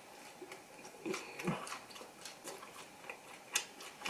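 Quiet eating sounds: soft, irregular mouth clicks and smacks of chewing, with a couple of brief low throat or mouth sounds around a second and a half in.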